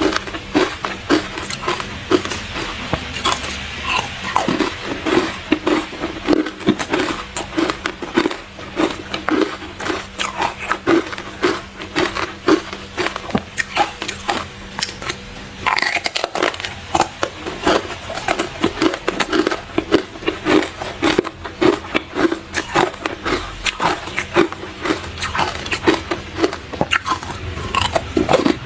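Close-miked crunching of hard ice being bitten and chewed: a steady run of crisp cracks and crackles over a regular chewing rhythm.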